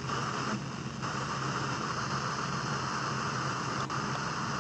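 FM radio receiver hissing with static while tuned to empty frequencies between stations. The hiss breaks briefly twice as the tuning steps to the next frequency.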